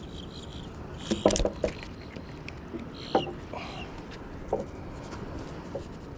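Short clicks and knocks of unhooking small fish from a rig with metal fishing pliers. The loudest cluster comes just after a second in and another sharp click near three seconds, all over steady background noise.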